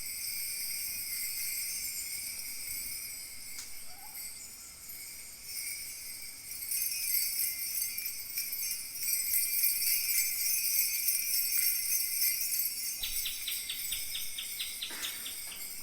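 Kaskawillas, Mapuche bronze bells, shaken continuously in a dense jingling shimmer that imitates falling water, growing louder about halfway through. Near the end a quick run of high ticks, about ten a second, sounds over the jingling.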